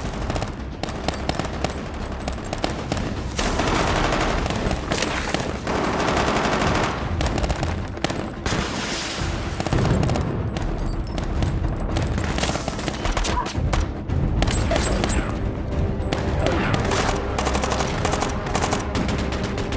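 Sustained heavy gunfire in a film battle mix: automatic rifles and machine guns firing in rapid, overlapping bursts, with explosions mixed in.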